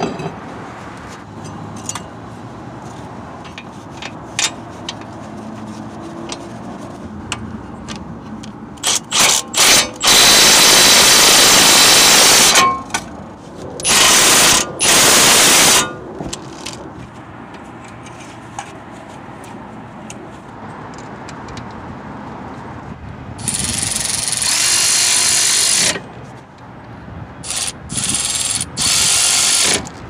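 Cordless power tool running in the bolts of a car's front brake caliper bracket, in several bursts. A few short blips come about nine seconds in, then a run of about two and a half seconds and two short runs. Another long run follows past the middle, and short blips come near the end.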